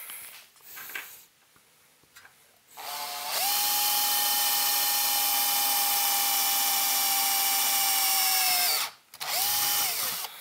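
Cordless drill boring a 1/8-inch hole through the thin metal top of a project chassis. After a few small handling clicks, the drill runs up to a steady whine for about five and a half seconds, stops, then gives a short second burst near the end that winds down in pitch.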